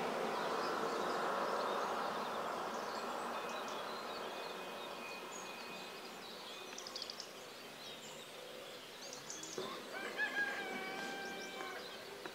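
A rooster crowing, one long call about ten seconds in, with small birds chirping throughout. Over the first six seconds a dense background hum fades away.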